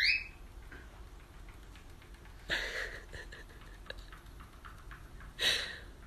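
A cockatiel gives a short rising chirp at the start, then faint scattered ticks of its feet on a treadmill belt. Two short breathy bursts of noise come about three seconds apart, over a steady low hum.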